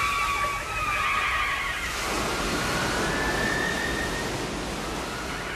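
Steady rushing noise like surf, with faint, wavering high gliding tones over it in the first two seconds and one long, slightly rising tone about three seconds in.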